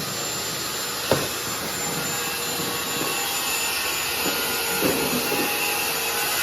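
Electric motor of a power tool or shop machine running steadily, a hiss with a high steady whine; a sharp knock about a second in and a few lighter knocks later.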